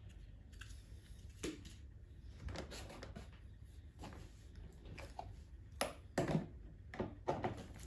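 Plastic parts of a car's HVAC air distribution housing being handled and set aside: scattered light clicks, rattles and knocks, a few louder ones near the end.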